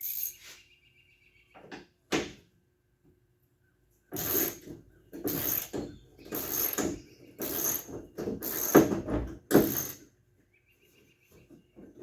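Quarter-inch drive ratchet cranked back and forth on an 11 mm bolt in six strokes about a second apart, each a rasp of quick pawl clicks, working the bolt loose. A couple of sharp clicks come first, before the ratcheting starts.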